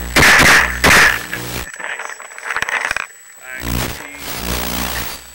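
Bursts of handling noise on the microphone of a camera mounted on a paintball gun as the gun is carried and moved about. The loudest come in the first second or so, with weaker ones later.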